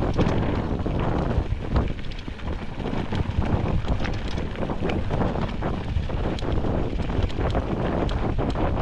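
Wind buffeting the microphone of a camera on a mountain bike riding downhill, with frequent sharp clicks and knocks of the bike rattling over rough ground.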